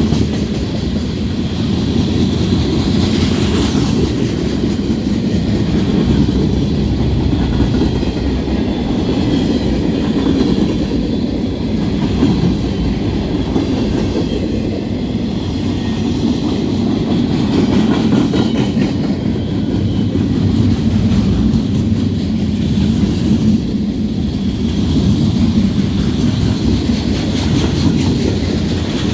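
Norfolk Southern freight train cars rolling past, their wheels clattering over the rail joints in a steady, continuous run.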